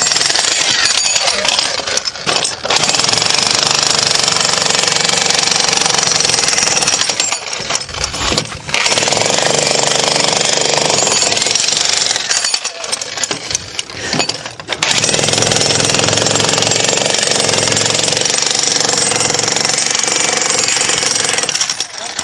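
Jackhammer breaking concrete, hammering continuously with brief pauses about eight seconds in and again around thirteen to fourteen seconds in.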